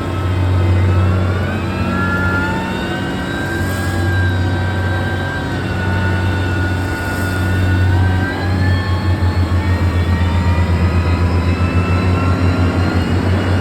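Heavy road-construction machine's engine running, a strong low hum with a whine above it that slowly rises and falls. About two-thirds of the way through, the engine note turns into a rapid even throb of about four to five pulses a second.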